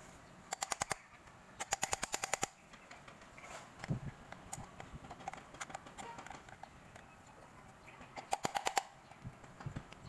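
Rapid clicking, about ten sharp clicks a second, in three short bursts: about half a second in, around two seconds in, and near the end.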